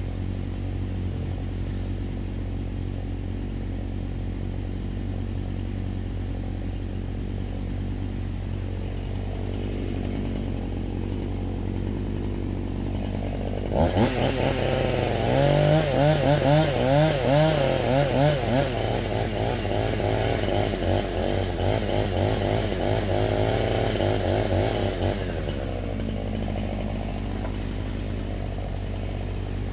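A chainsaw starts about halfway through and runs for about ten seconds, its pitch rising and falling rapidly as it revs and cuts, then stops. Under it, a steady low engine hum from the mini excavator runs throughout.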